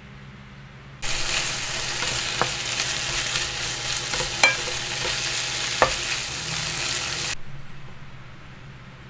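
Ground pork with cabbage and bell pepper sizzling as it is stir-fried in a pan, with a wooden spatula stirring through it and knocking sharply against the pan three times. The sizzle starts abruptly about a second in and fades away near the end.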